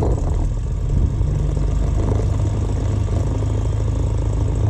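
Rans S6 light aircraft's engine and propeller running steadily at idle, just after start-up.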